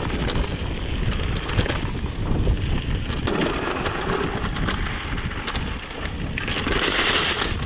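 Mountain bike rolling down a rough dirt trail: tyre noise and rattling clicks from the bike, with wind rumbling on the microphone and a louder hiss near the end.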